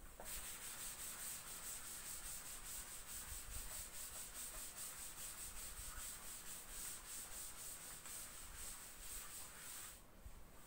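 Blackboard duster rubbing chalk off a chalkboard in quick, regular back-and-forth strokes. The rubbing stops near the end.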